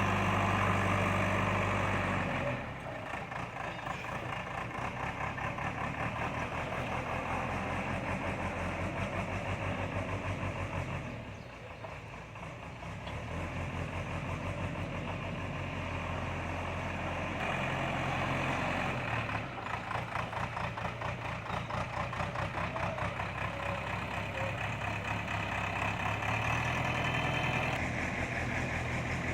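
Heavy diesel engine of construction machinery running. Its note shifts several times as the load changes, with a brief drop in level about eleven seconds in.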